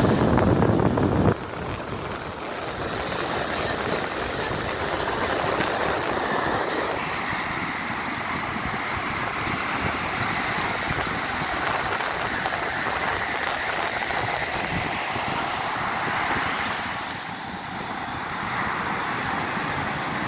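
Surf breaking and washing up on a sandy beach: a steady rush of waves, with wind on the microphone. A louder low rumble on the microphone stops abruptly about a second in.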